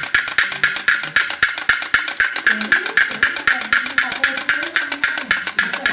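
Fast, even percussion beat of sharp clicks, about eight a second, with a faint wavering melody under it.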